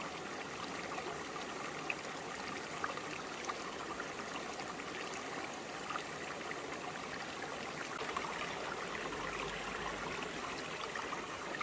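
Shallow forest stream flowing and trickling over broad rocks: a steady babble of water with small splashes and gurgles throughout.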